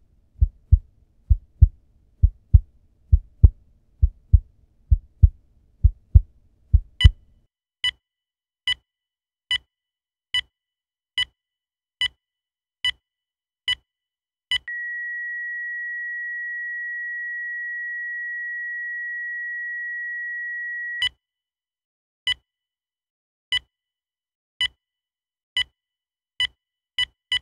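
A heartbeat beating in low lub-dub pairs for about seven seconds, then a heart monitor beeping about once a second. The beeps turn into a steady flatline tone, the monitor's signal that no heartbeat is detected, for about six seconds. The beeps then return and quicken toward the end.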